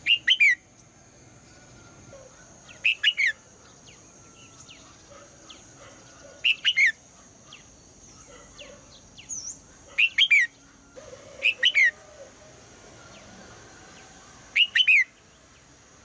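Red-whiskered bulbul calling: six short bursts of quick, falling whistled notes, each about half a second long, repeated every two to four seconds.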